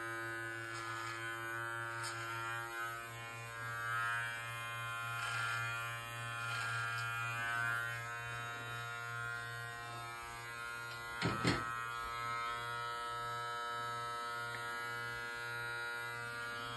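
Live Bearded MT-1 cordless trimmer running with a steady buzzing hum as it cuts the short hair at the side of the head, the level swelling slightly as it passes through the hair. Two short knocks come a little after the middle.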